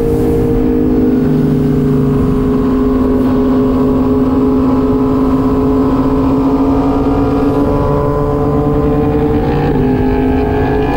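Yamaha MT-09 three-cylinder engine at a steady cruise, heard from the rider's seat through a LeoVince aftermarket exhaust, over wind rush. The pitch eases down slightly, then rises again near the end as the throttle opens. The exhaust sounds loud and deep, which the rider puts down to its fibreglass packing having burnt out.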